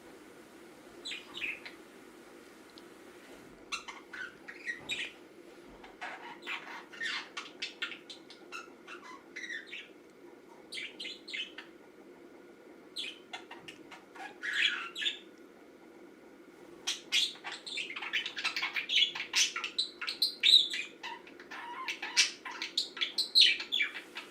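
Pet budgerigar chirping and chattering in short scattered bursts, growing busier in the last several seconds, over a steady low hum.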